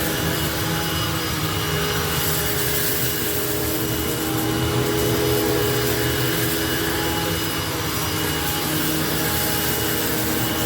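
Hoover WidePath Fold Away upright vacuum cleaner running steadily, its motor giving a constant hum with a high whine over a steady rush of air.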